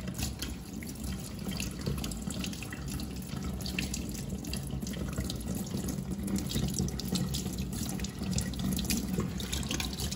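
Water running from a kitchen tap into a stainless steel sink, splashing irregularly as hands rinse soil off a plant cutting's roots under the stream.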